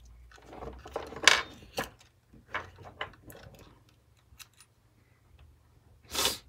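Small irregular clicks and taps of a metal guitar input jack, its washer and nut being fitted by hand into a small plastic speaker case. The loudest click comes about a second in, and a louder, longer rasp of handling noise comes near the end.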